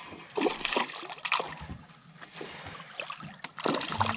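Small hooked Suwannee bass splashing at the water's surface in several irregular bursts as it is reeled in, the loudest about half a second in and another near the end.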